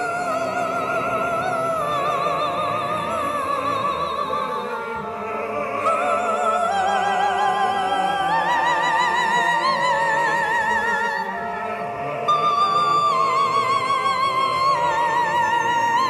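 Female singer holding long notes with wide vibrato over live band backing, the melody climbing in pitch about halfway through and then stepping back down in held notes.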